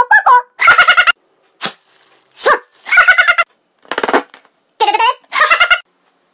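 A man's voice making short, high-pitched wordless vocal noises in about five separate bursts, with sudden silences between them.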